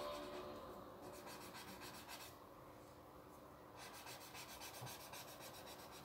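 Graphite pencil shading on drawing paper: faint, repeated scratchy strokes.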